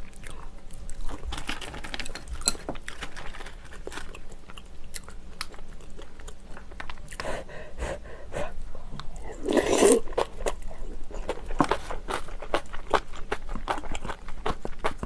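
Close-miked biting, crunching and chewing of crisp napa cabbage kimchi: many small crisp crunches, with one louder burst about ten seconds in.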